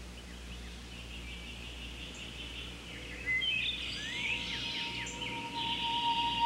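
Birds chirping and singing in quick, sweeping calls, thickening about halfway through. A steady held tone of soft music fades in beneath them.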